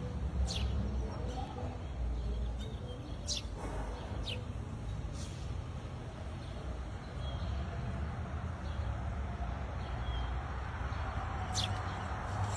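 Steady low traffic rumble, with a bird giving short, quick down-slurred chirps several times.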